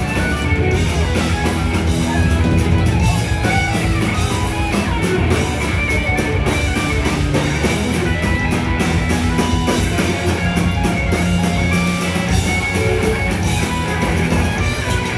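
Rock band playing live: loud electric guitars over a drum kit, a dense and continuous wall of sound.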